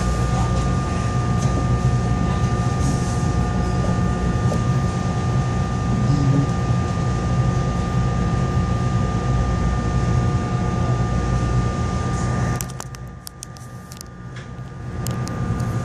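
Steady running sound inside a moving Arrow III electric multiple-unit railcar: a low rumble under a constant high hum. About thirteen seconds in the sound drops away sharply for a couple of seconds, with a few clicks, then comes back.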